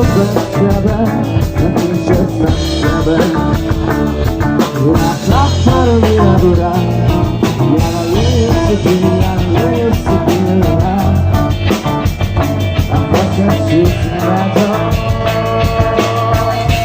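Rock song played by a band, with a drum kit keeping a steady beat under bass and melodic lines.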